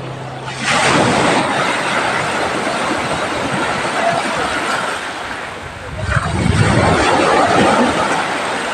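Sea waves breaking and washing in, a loud rushing surge about a second in and another about six seconds in.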